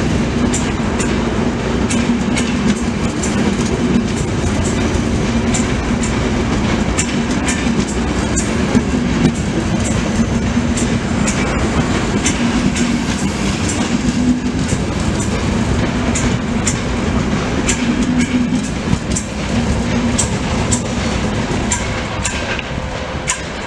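Passenger train coaches rolling past on the tracks: a steady wheel rumble with irregular clickety-clack as the wheels cross rail joints. It eases off near the end as the last coach goes by.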